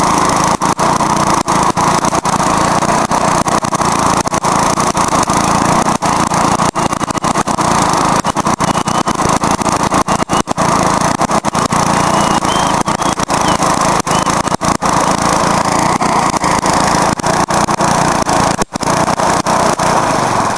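Briggs & Stratton lawnmower engine with a broken exhaust running loud and steady while it is run to destruction, with one brief dip near the end.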